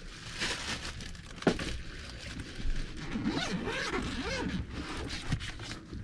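Plastic bags crinkling and rustling while a soft-sided cooler is handled and opened, with a single sharp knock about a second and a half in.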